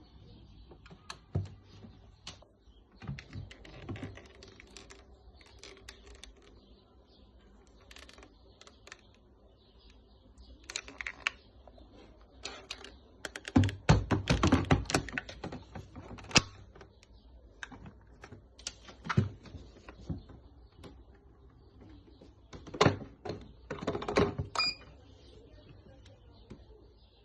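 Irregular clicks and knocks of hard objects being handled, with a quick clatter about fourteen seconds in and another cluster near the end.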